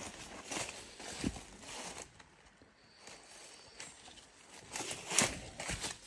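Footsteps on a dirt trail covered in dry leaves, irregular steps with leaves rustling underfoot; a louder run of steps comes about five seconds in.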